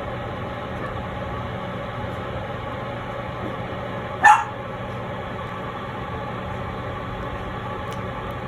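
A puppy giving one short yip about four seconds in, its pitch falling quickly, over a steady background hum.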